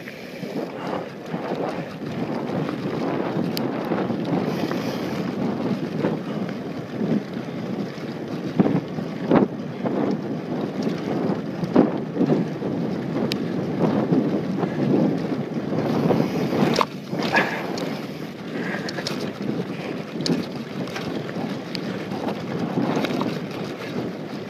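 Wind buffeting the microphone over the rumble of mountain bike tyres rolling fast on a dirt and gravel trail, with scattered knocks and rattles as the bike hits bumps.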